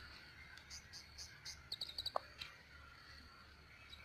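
Small birds chirping: a quick run of four or five short high notes about two seconds in, then a brief falling call, over a faint steady outdoor background.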